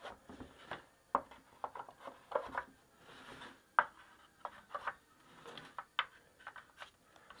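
Thin wooden bandsaw-cut pine trays knocked and slid together as they are nested into a stack: a run of light wooden clicks and taps, with a brief scraping slide about three seconds in.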